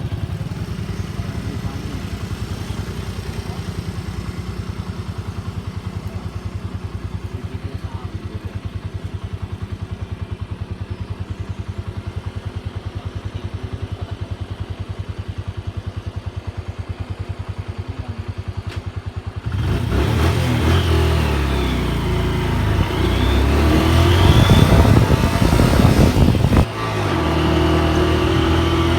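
A small engine running steadily with a rapid, even pulse. About two-thirds of the way through, the sound switches abruptly to a louder engine with whines that rise and fall, then switches again near the end to a steady engine hum.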